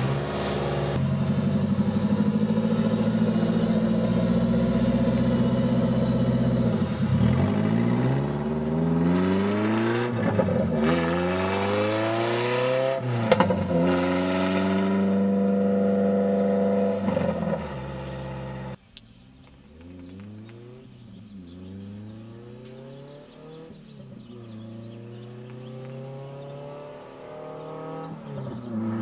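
Toyota 4A-GE twin-cam four-cylinder engine in a Lotus Europa, running on open headers with no muffler, revving hard and accelerating up through the gears, its pitch climbing and dropping at each shift. About two-thirds in it cuts abruptly to a quieter pass, where the engine again climbs through the gears and grows louder near the end.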